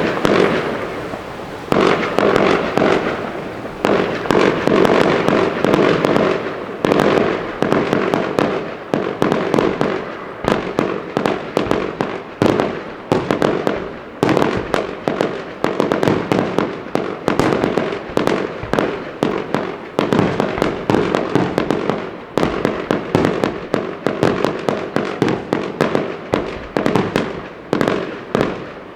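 Fireworks going off in a dense barrage: rapid sharp bangs and crackling, several a second, starting suddenly and continuing throughout.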